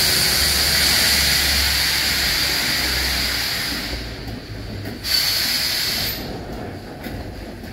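Britannia, a BR Standard Class 7 steam locomotive, venting steam: a loud hiss that fades after about four seconds, then a second, shorter hiss about five seconds in.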